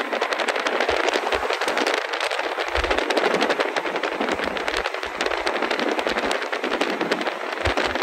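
Wind and road noise of a moving car: a loud, steady rush with dense, quick crackling mixed in.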